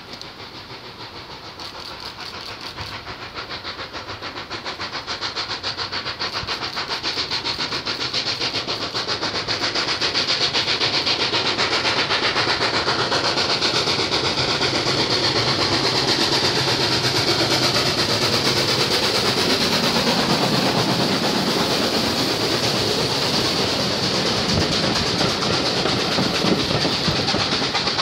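Steam locomotive approaching and passing with a train of carriages, its chuffing exhaust beats growing louder over the first ten seconds. The wheels then clatter over the rail joints as the coaches go by.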